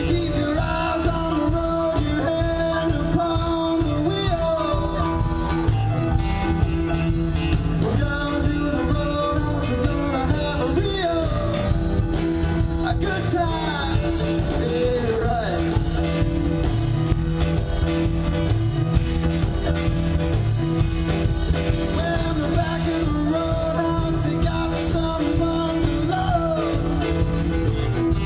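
Live rock band playing: electric guitar, electric bass, drum kit and keyboard, with a sung lead vocal over it.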